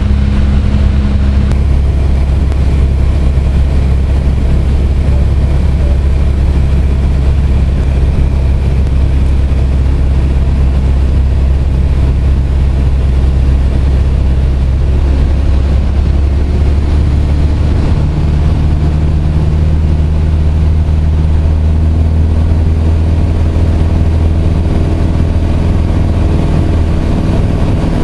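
Light aircraft's piston engine and propeller droning steadily, heard inside the cabin; the engine note shifts slightly about seventeen seconds in.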